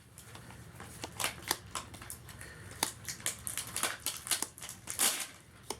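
Crinkling and rustling of a Magic: The Gathering booster pack being handled, its foil wrapper and cards giving an irregular run of short crackles and clicks.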